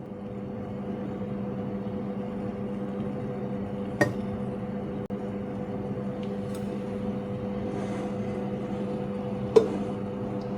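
A kitchen appliance running with a steady electrical hum, with a light click about four seconds in and another near the end.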